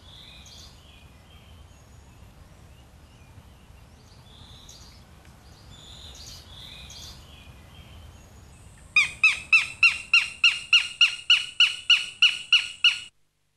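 Faint high chirps, then about nine seconds in a northern goshawk breaks into a loud, rapid series of sharp calls, about four a second, which stops abruptly after some four seconds.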